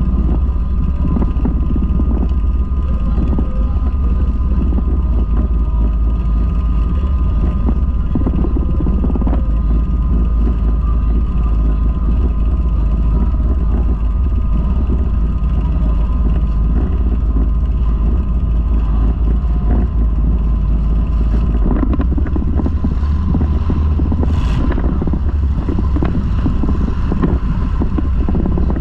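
Demolition derby car engines running, a loud, steady low rumble close to the microphone. In the last several seconds the sound changes as the car starts rolling across the track, with a few sharp knocks.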